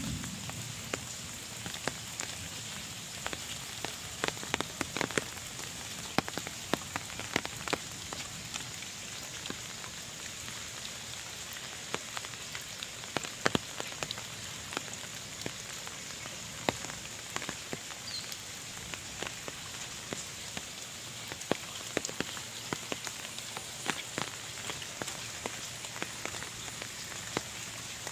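Light rain falling into muddy puddles: a steady hiss with many irregular sharp taps of single drops hitting the water.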